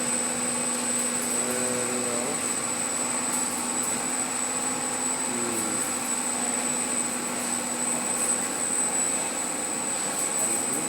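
Corn puff production line machinery running steadily: a continuous mechanical din with a steady high-pitched whine and a lower hum that fades about six seconds in.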